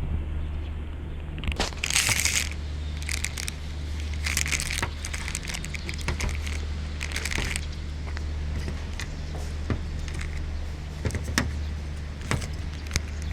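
Steady low electrical hum, with scattered crackles and a few short bursts of hiss: the kind of noise an analog FPV receiver and DVR put on the sound track. No motor whine can be picked out.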